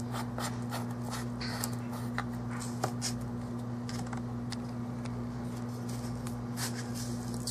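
Steady low electrical hum with faint scattered clicks and taps from small items being handled.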